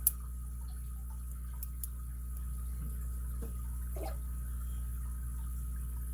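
Steady low hum with a few faint, sparse clicks of a lock pick and tension tool working the pins inside an ABUS 83CS/55 padlock. The sharpest click comes right at the start.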